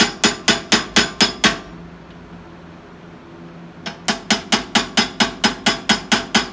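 Hand hammer rapidly striking a small punch held on hot Damascus steel in a vise, punching in the nostrils: quick ringing metal strikes about four a second. They pause for about two and a half seconds midway, then resume at the same pace.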